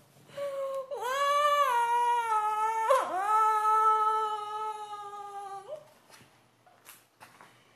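A woman's high-pitched, drawn-out squealing voice, held in long wavering notes, breaking sharply about three seconds in and dying away at about six seconds.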